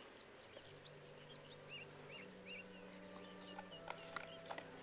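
Small birds chirping repeatedly in the background, with faint low sustained tones underneath that shift in pitch a few times. Near the end come a few light clicks of a cardboard phone box being opened and handled.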